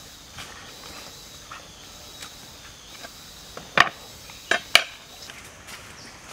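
Three sharp knocks of utensils and a basket being handled on a bamboo table, one and then a quick pair about a second later, over a faint steady insect buzz.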